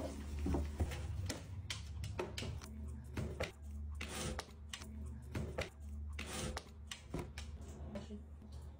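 Cardboard shoebox rustling, scraping and tapping as a small dog noses into it and rummages among the toys inside. A string of irregular short knocks and scuffs over a low steady hum.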